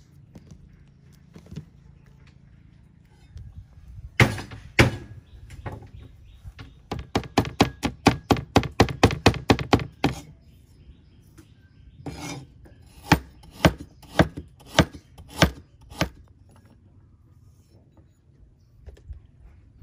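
Broad kitchen knife chopping garlic on a wooden cutting board: two heavy knocks, then a fast run of chops about five a second, then a slower series of single chops.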